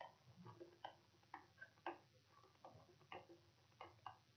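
Near silence broken by faint, irregular light ticks, a few a second: a stylus tapping on a writing tablet as words are handwritten.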